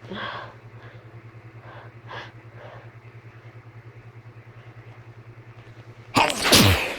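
A steady low hum with a faint pulse, a few soft breath-like noises over it, then about six seconds in a person's sudden loud sneeze.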